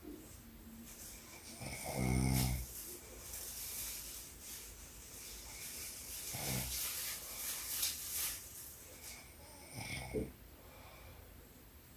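A woman snoring in her sleep: three buzzy snores about four seconds apart, with breathy breathing between them.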